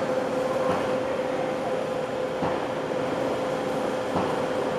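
Metal lathe turning a large workpiece in its chuck: a steady running hum with one constant mid-pitched tone, and a few light knocks about a second and a half apart.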